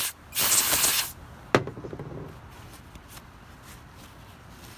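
Aerosol electrical contact cleaner sprayed in one hissing burst of about a second into the pivot of aluminum fishing pliers, flushing out grease and sand. A sharp click follows, then soft rustling of a paper towel wiping the pliers.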